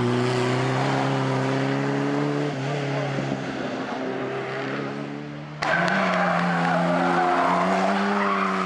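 A small saloon race car's engine running hard as the car passes and climbs away, its pitch stepping down about two and a half seconds in. After a sudden edit about five and a half seconds in, a BMW 3 Series (E30) engine pulls hard up the hill.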